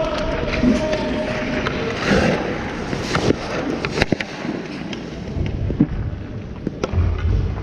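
Ice skates scraping and carving on a rink, with several sharp knocks spread through, the loudest about halfway.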